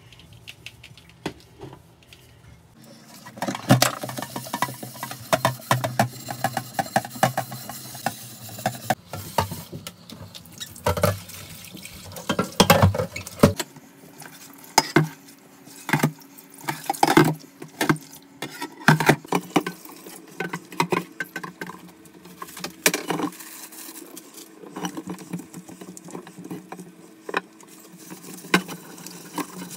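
A grimy stainless steel pot being washed in a steel kitchen sink: many sharp clinks and knocks of metal on metal as it is handled and scrubbed, with tap water running and splashing.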